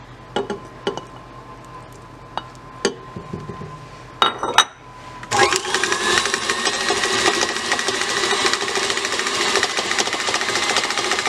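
A few light knocks, then about five seconds in an electric stand mixer starts and runs steadily, its wire whisk creaming butter into cream cheese for frosting.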